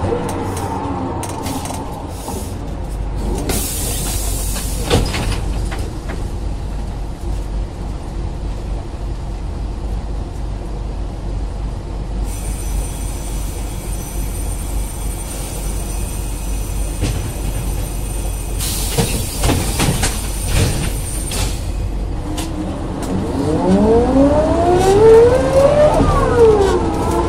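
1987 Ikarus 415 city bus with a DAF LT 160L diesel and ZF 4HP 500 automatic gearbox, heard from inside. It slows with falling engine and gearbox tones, then idles with a low rumble and two short bursts of compressed-air hiss. Near the end it pulls away, with the engine and gearbox whine rising, dipping at an upshift, and rising again.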